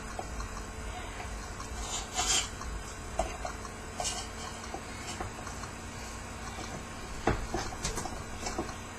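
Steel transfer-case parts clinking and clicking as a shift fork is worked into place over its gear, with scattered light taps and one sharper click a little past seven seconds in. A low steady hum runs underneath.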